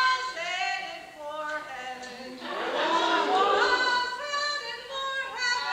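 A group of cast members singing together on stage, with held and sliding notes.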